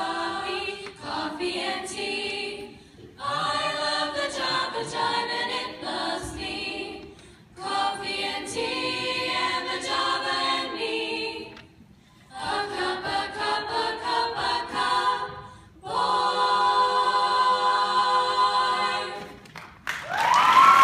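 High school girls' choir singing a cappella in several phrases with short breaks, ending on a long held chord. Audience cheering and whoops break out right at the end.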